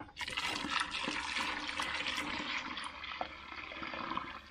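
Liquid pouring in a steady stream for about four seconds, starting suddenly and easing off near the end: strained plum juice being poured while making plum sour.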